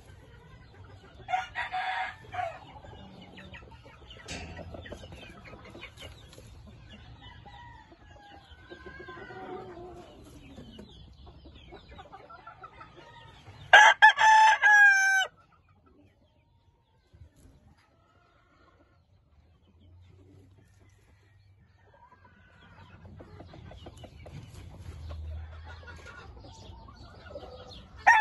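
Gamecock crowing once, loud, about a second and a half long with a falling tail, halfway through. A shorter, loud rooster call comes about a second and a half in, with fainter calls after it, and another crow begins right at the end.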